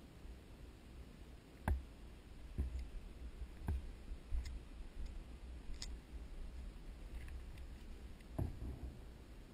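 Scattered sharp clicks and knocks, about six spread irregularly across several seconds, the loudest near the start, over a low steady rumble.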